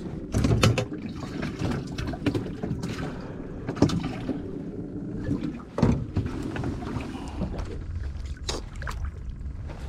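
Scattered knocks and clatter of fishing gear being handled in an aluminium boat, over a steady low rumble, with the sharpest knocks about half a second in, near 4 s, near 6 s and near 8.5 s.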